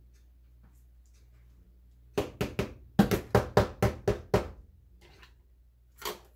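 A quick run of about ten sharp knocks in two seconds as a jar of thick smoothie is tapped while being filled, then one more knock near the end as the lid goes onto the glass jar.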